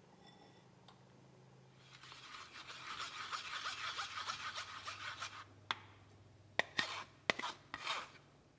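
Wooden spoon rubbing thin batter through a fine wire-mesh sieve, a fast faint rasping for a few seconds, followed by a few sharp taps near the end.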